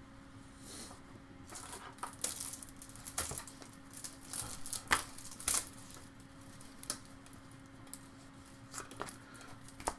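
Trading cards handled in the hands: faint irregular clicks and rustles as the stack of cards is slid and sorted, over a faint steady hum.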